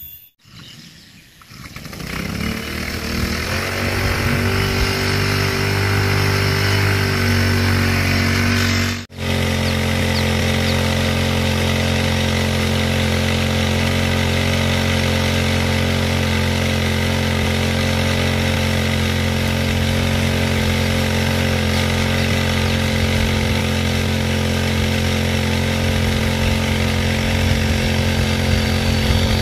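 Small petrol engine of a portable power sprayer running, rising in pitch over the first few seconds to a steady speed as it drives the spray pump. After a brief drop-out about nine seconds in it runs on steadily.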